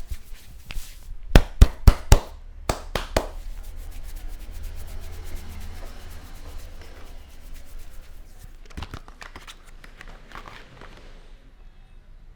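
Hands massaging a head: a quick run of sharp slaps about a second and a half in, the loudest sounds here. Then the steady rustling rub of palms and fingers working the scalp and hair, with a few softer strikes later.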